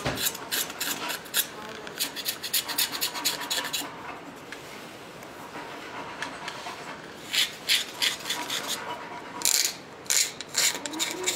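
A knife shaving and scraping a wooden spoon blank by hand in quick, short strokes. The strokes come in runs, with a quieter pause of a few seconds in the middle.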